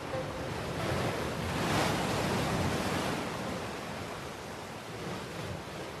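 Pacific Ocean surf: a steady rush of breaking waves that swells about a second in and eases off after about three seconds.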